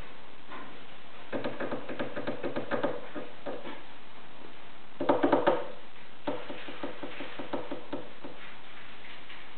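A pug puppy's claws tapping and scratching on the floor of a whelping box as it paws along, in three bursts of quick clicks; the loudest, shortest burst comes about halfway through.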